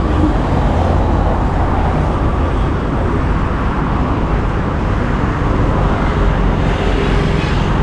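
Steady road traffic noise from vehicles passing on a busy road.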